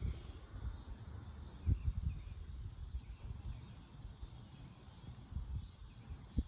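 Wind buffeting the microphone in irregular low gusts, over a faint steady background of insects and birds.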